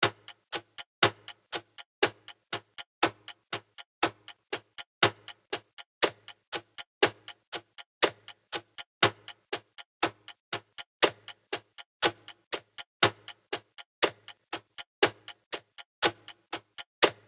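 Clock ticking steadily: quick, even ticks with a louder tick about once a second.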